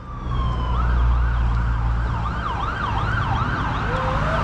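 Emergency vehicle siren: a falling wail gives way to a fast up-and-down yelp of about three sweeps a second, then a slow rising wail begins near the end, over low traffic rumble.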